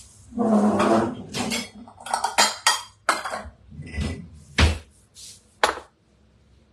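Kitchenware being handled: a ceramic bowl and utensils clattering, a longer rattle about half a second in, then a string of sharp clinks and knocks as the bowl is set down on a wooden cutting board.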